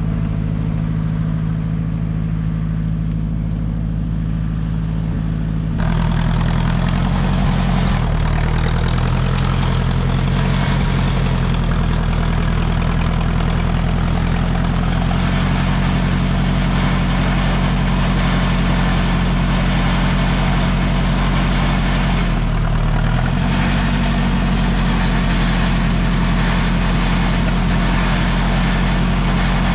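1959 Ford 641 tractor engine running at idle. About six seconds in it speeds up and gets louder, then holds a steady faster pace, with a brief sag in speed a little after twenty seconds before it picks back up.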